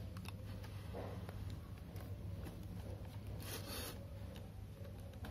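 Faint rustling and scraping of packaging and wires being handled, with small clicks and one louder rustle about three and a half seconds in, over a low steady hum.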